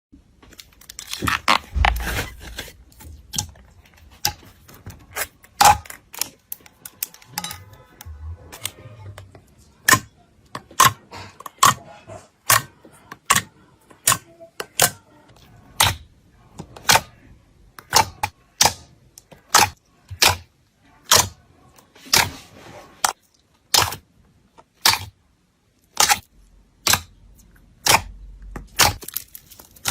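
Slime being pressed and squeezed by hand, giving sharp, crisp popping clicks as air pockets burst. The clicks come irregularly at first, then settle to about one a second.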